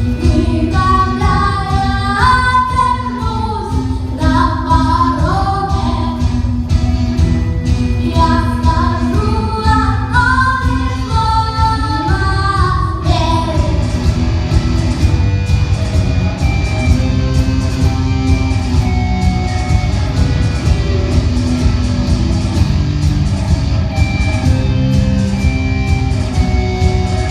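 Rock song with voices singing over bass guitar and a steady drum beat; about halfway through the singing stops and the band carries on with an instrumental passage.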